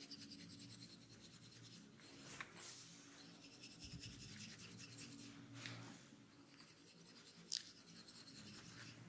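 Hands rubbing and scratching through hair during a head massage: a faint, fast, scratchy rustle with a few sharp crackling clicks, the loudest about seven and a half seconds in.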